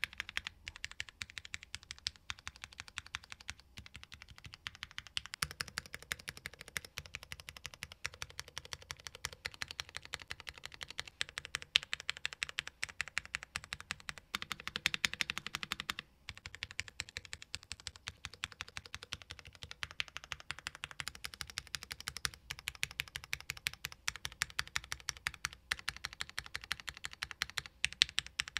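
Fast, continuous typing on a Tofu60 2.0 60% mechanical keyboard with Cherry MX Hyperglide Black linear switches, PBT keycaps and a polycarbonate plate. The keys clack densely, with brief pauses about 4 seconds in and again about 16 seconds in.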